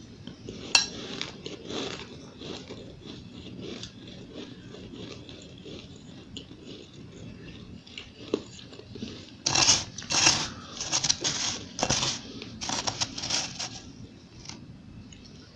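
Close-miked crunching and chewing of powdery, refrozen freezer-frost ice, with a metal spoon digging into the ice in a glass bowl. The crunches are crisp and sharp, softer through the middle, with a dense run of loud crunches in the second half.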